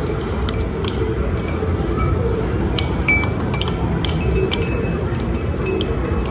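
Air hockey puck clacking against the mallets and rails of an Air FX table: a string of sharp, irregular hits over a steady low arcade din.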